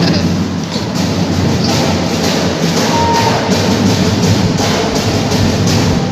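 A marching drum band playing, with percussion beating out a steady rhythm of about three strokes a second.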